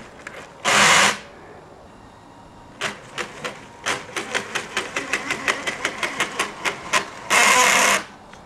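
Radio-controlled Hummer H1's brushed 540 electric motor and gearbox whirring in two short full-throttle bursts, about a second in and again near the end. Between them comes a run of sharp clicks from the drivetrain that quicken to about five a second, a sign of a mechanical defect.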